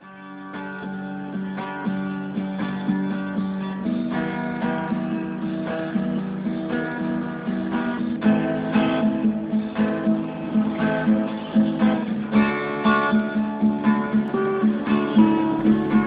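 Acoustic guitar intro, strummed in a steady rhythm, swelling up in loudness over the first couple of seconds.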